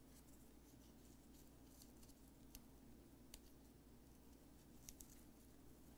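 Near silence: room tone, with a few faint ticks as a ribbon is tied into a bow around a glass jar's lid.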